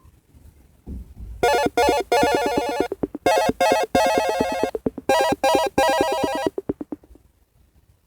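Alarm tone from a Micromax Canvas Q415 phone. It is made of bursts of rapid electronic pulsing, begins about a second and a half in, and stops a second or so before the end.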